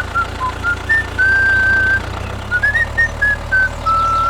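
Whistling of a simple tune in short and held notes, over the steady low hum of an engine running.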